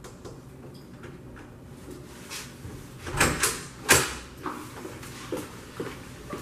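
A few sharp knocks and thumps, a cluster about three seconds in and the loudest about four seconds in, with quieter rustling.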